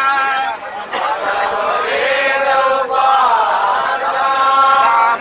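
A group of passengers singing together in chorus, chant-like, with long held notes that bend in pitch.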